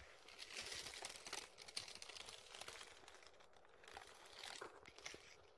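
Faint rattling and clicking of a Daiso Petit Train toy train running along plastic toy track.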